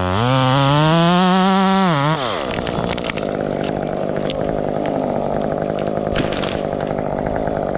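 Chainsaw throttled up, held at high revs for about two seconds, then let off, after which it runs on at a lower, steady pitch.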